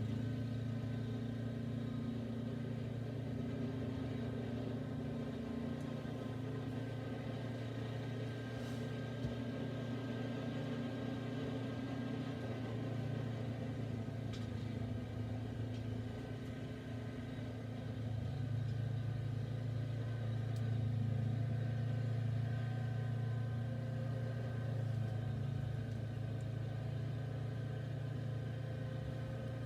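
Snowblower engine running steadily under load. It eases off a little just past halfway and then comes back slightly louder.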